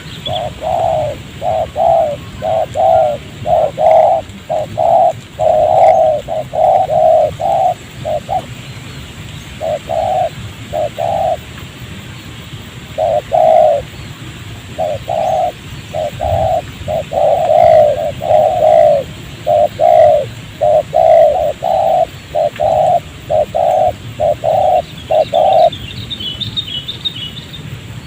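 Spotted dove (tekukur) cooing: many short coos in quick runs, with a pause of a couple of seconds near the middle. A small bird chirps briefly near the end.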